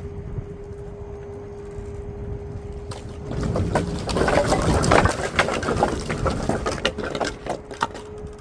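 Dry maple firewood tumbling out of a tilted dump trailer: a loud clatter of many split logs knocking together, starting about three seconds in and lasting about five seconds. Before and after the clatter there is a steady whine.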